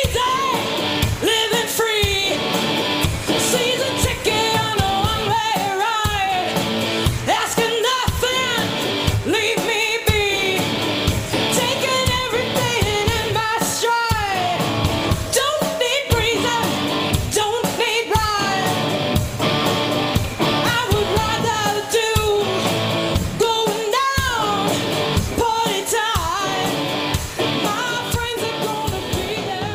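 A rock band playing live: a singer over guitar and a steady beat.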